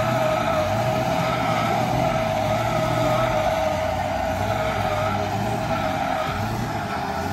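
1986 Lincoln Town Car's V8 running low as the car rolls slowly on its air suspension, with a steady high squeal over it, like tyres scrubbing on concrete as it turns with one front wheel lifted.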